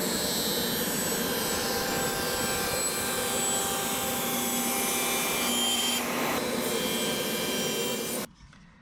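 Sliding-table panel saw running and cutting birch plywood: a steady, loud whine of the blade in the wood. It cuts off suddenly near the end.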